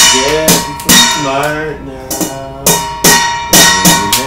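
Kitchen utensils banged on a stainless steel mixing bowl as a drum: about ten uneven clangs, with the bowl ringing between strikes. A voice sings a long, wavering note through the first two seconds.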